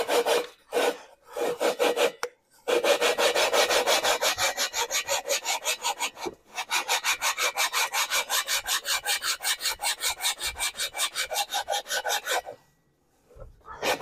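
A cylinder barrel being lapped to its seat in a Porsche 912E Type 4 engine's aluminium cylinder head: metal scraping on metal through lapping compound in back-and-forth twisting strokes. The strokes start slowly and settle into a fast, even rhythm of about six a second after a few seconds, with a brief pause in the middle. They stop shortly before the end, then start again.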